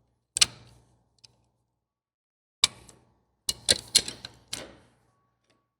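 Sharp metal clanks of a wrench being worked on a stuck fastener: a single knock, another about two seconds later, then a quick run of five, each with a short ring.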